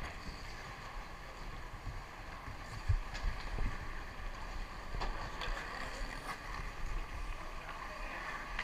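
Indoor ice hockey rink ambience: a steady hum with a few sharp knocks from play on the ice, and faint distant voices.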